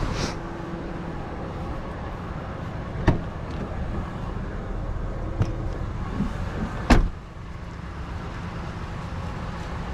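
A vehicle's engine running steadily at idle, with a few sharp knocks, the loudest about seven seconds in.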